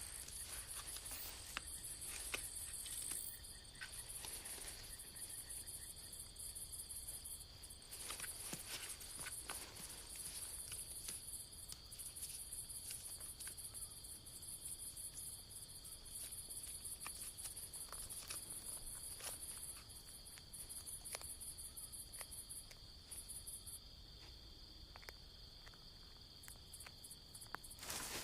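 Crickets chirping in rapid, high-pitched pulsed trains over a steady insect drone, with scattered faint clicks and rustles; the highest trilling stops near the end.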